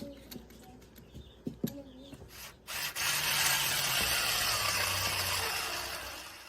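A few light clicks and knocks, then a power tool starts about two and a half seconds in and runs steadily for about three and a half seconds. Its hum drops a little in pitch partway through, and it fades out near the end.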